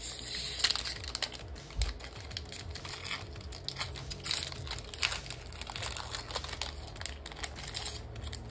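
Foil wrapper of a Pokémon trading card booster pack crinkling as it is torn open by hand: a run of irregular crackles and clicks.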